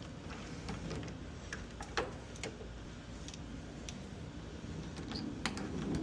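Scattered light clicks as pliers pull the spade connectors off the terminals of a central air conditioner's 45/5 dual run capacitor, with one sharper click about two seconds in.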